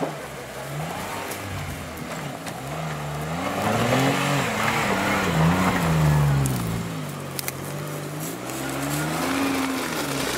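Modified Suzuki Jimny's engine revving up and falling back again and again as the 4x4 crawls over a rutted dirt slope. It is loudest about halfway through.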